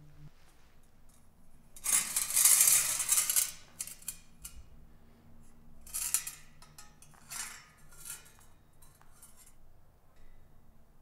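A metal bowl scraped and handled on a tiled floor. There is a long scrape about two seconds in, the loudest, then shorter scrapes around six, seven and a half, and eight to nine seconds, over a faint low hum.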